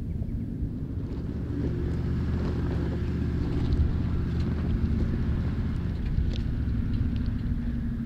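Toyota LandCruiser 79's V8 turbo-diesel engine running steadily at low revs as the 4WD crawls over a rough track, with a few light knocks and rattles.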